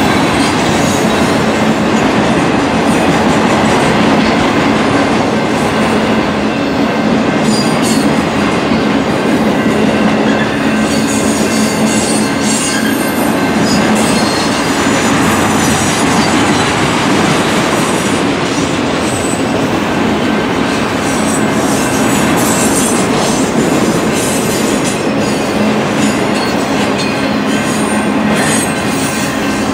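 Autorack freight cars rolling steadily past close by: a continuous, even rumble of steel wheels running on the rails.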